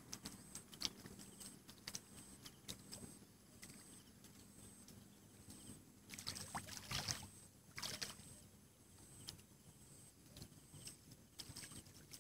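Quiet outdoor ambience: faint scattered clicks and a faint high chirp repeating about twice a second, with two brief rustling noises a little past halfway.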